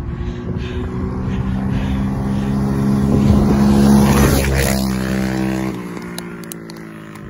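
A small engine running steadily, growing louder up to about four seconds in and then fading, its note shifting about six seconds in.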